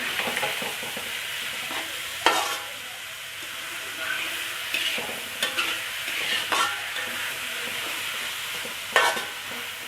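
Chopped chillies and tomatoes sizzling in hot oil in a pan as a spatula stirs them, the tomatoes giving off their juice. Several sharp scrapes and clacks of the spatula against the pan, the loudest about two seconds in and near the end.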